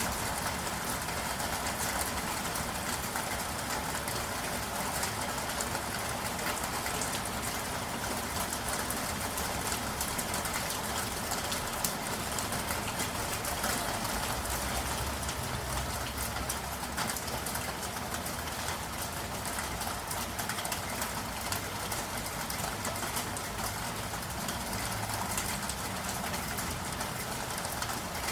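Steady rain falling on city surfaces, an even hiss with fine patter throughout. A low rumble of traffic swells about halfway through and briefly again near the end.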